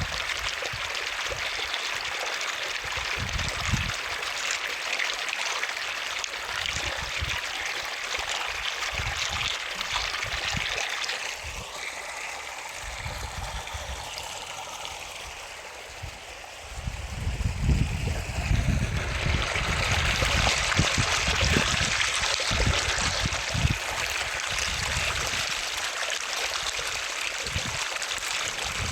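Water running and splashing in a stream or natural pool, a steady rushing with irregular low gurgles. It drops quieter for a few seconds in the middle, then comes back louder.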